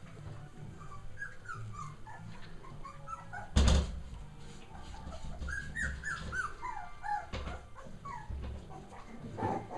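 Three-week-old Cavalier King Charles Spaniel puppies playing and giving many short, high squeaky whimpers that fall in pitch, in quick runs. A loud thump comes about three and a half seconds in.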